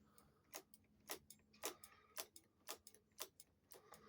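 Faint, regular sharp clicks, a little under two a second, from the motorcycle's front brake lever being pumped to build pressure in the master cylinder during brake bleeding.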